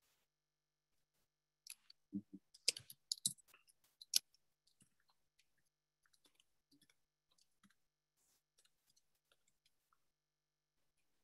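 Faint computer keyboard and mouse clicking: a flurry of sharp clicks and a few duller taps about two to four seconds in, then scattered light clicks.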